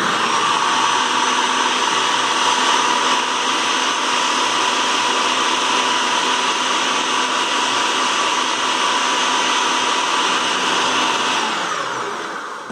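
Small food processor's motor and blade running steadily with a high whine, mixing crushed cornstarch biscuits with melted margarine for a cake crust. It is switched on at the start and winds down near the end, its pitch falling as it stops.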